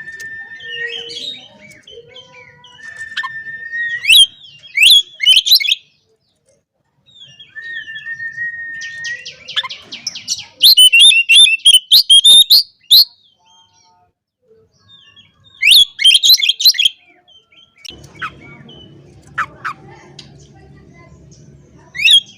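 Oriental magpie-robin singing a loud challenging song: held steady whistles, each followed by a fast burst of sharp chattering notes, in several phrases with short pauses between. A faint low hum runs under it near the end.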